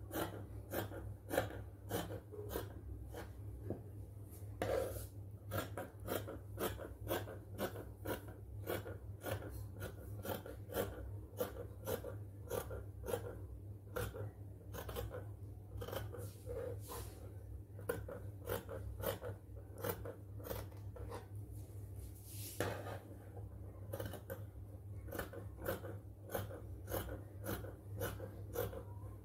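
Scissors snipping through woven fabric in a steady run of short cuts, about two a second, over a low steady hum.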